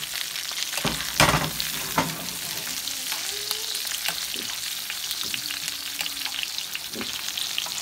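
Melted butter sizzling and crackling in a very hot frying pan as salmon fillets are basted with a spoon. The spoon knocks against the pan a few times, loudest about a second in.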